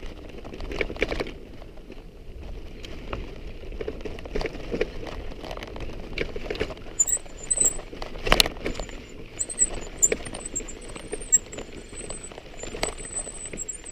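A mountain bike's frame and drivetrain rattle and knock irregularly as it rolls over a rocky trail, with the crunch of stones underneath. The loudest knock comes a little past the middle. Over the second half a high, thin chirping comes and goes.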